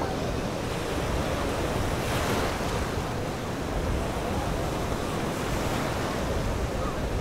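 Steady wash of sea water and waves with wind buffeting the microphone.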